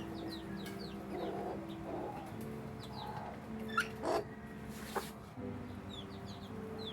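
Flock of backyard chickens at feed: chickens clucking while chicks peep in quick, high chirps, with a couple of louder squawks about four and five seconds in.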